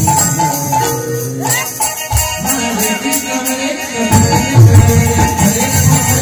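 Harinam sankirtan music: small brass hand cymbals (kartal) clashing in a quick, steady rhythm over a khol drum. The drum drops out for a couple of seconds in the middle, then comes back in.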